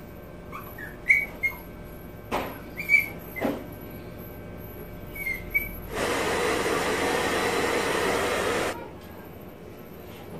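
Handheld hair dryer switched on for about three seconds, a steady rushing blow over a small dog's damp fur after its bath, then cut off. Before it, a few short high squeaks and a couple of light knocks.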